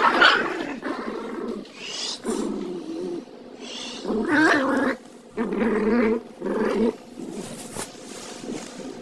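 Small dogs growling in play over a plush toy, in about five rough bursts with short pauses between.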